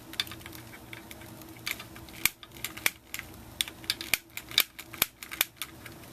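Long-reach utility lighter clicking over and over, its trigger igniter snapping at uneven intervals, sometimes in quick pairs, while lighting the burners under a live steam locomotive's boiler.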